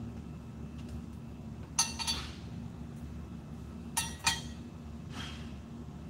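Small metal parts clinking together: two quick pairs of light clinks about two seconds apart, each ringing briefly.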